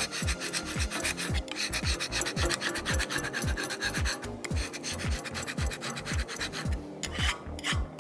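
A hand scraper, then a steel wire brush, rasping in quick repeated strokes across a steel cooking plate. They are stripping off a protective oil layer that has come loose because the plate was not kept oiled.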